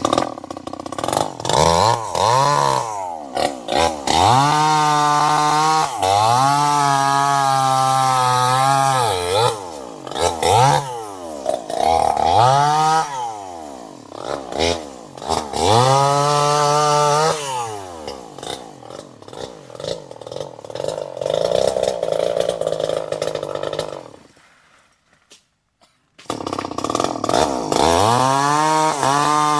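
Two-stroke chainsaw engine revved again and again: it climbs to a high, steady full-throttle pitch for a second or few, then falls back, several times over. Past the middle it runs lower and unsteadily, drops away to near silence for about two seconds, then comes back suddenly at full throttle.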